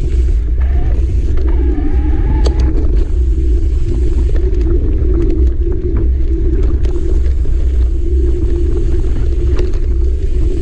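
Mountain bike ridden fast along a dirt forest singletrack: constant low rumble of wind buffeting the camera microphone and tyres on the dirt, with scattered sharp clicks and rattles from the bike over the rough trail.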